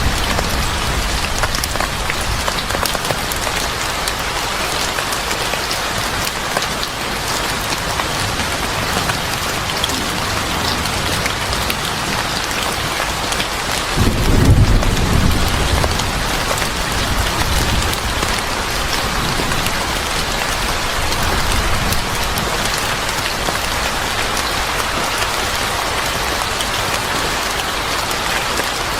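Steady, heavy rain with scattered fine crackles, and a low rumble of thunder swelling about halfway through.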